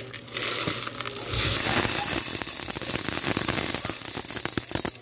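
Dried popcorn kernels poured into hot oil in a nonstick pan: a steady sizzle thick with small clicks and rattles as the kernels hit the pan and settle, growing louder about a second and a half in.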